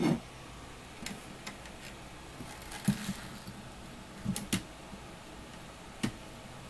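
A handful of separate knocks and clicks from a person moving about during a workout, the loudest about three seconds in, over a steady faint hiss.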